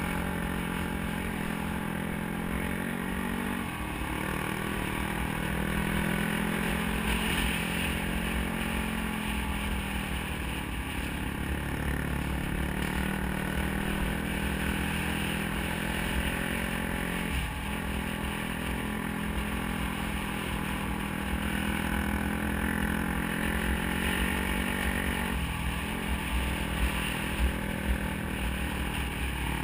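Dirt bike engine running under way, heard from on the bike, with the hiss of the ride around it. The engine note drops and picks up again four times, and there are a few sharp knocks near the end.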